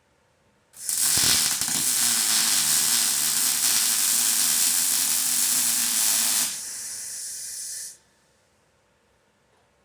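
Welding arc laying a bead, a steady crackling hiss that starts about a second in and runs for roughly five and a half seconds, then drops to a softer hiss for about a second and a half before cutting off.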